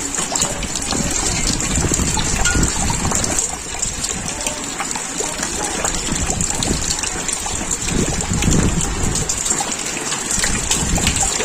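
Heavy rain pouring steadily, with gusts of wind buffeting the microphone.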